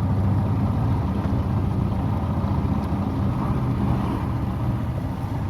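Motorboat engine running steadily with a low hum, its pitch rising slightly about halfway through.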